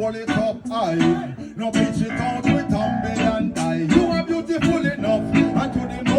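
Live reggae band playing, guitar to the fore over bass and drums with a steady beat.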